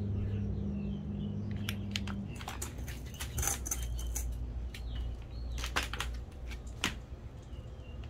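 Scattered clicks and knocks of a stroller's plastic rear-wheel housing and frame being handled, the sharpest a few seconds before the end. A low steady hum stops about two seconds in, and faint bird chirps sound now and then.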